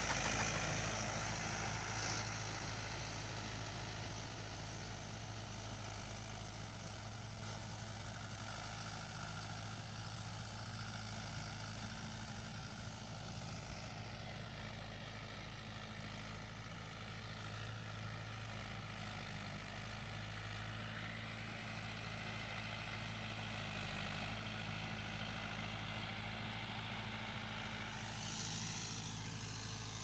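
Mahindra tractor's diesel engine running steadily as it pulls a tillage implement through a field. It fades over the first few seconds as the tractor moves away, then holds steady.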